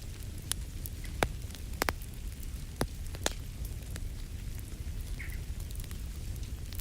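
Wood fire crackling in a fireplace: scattered sharp pops, one or two a second, over a steady low rumble.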